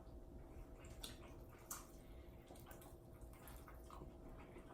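Near silence with faint, scattered clicks and wet mouth sounds of someone chewing food.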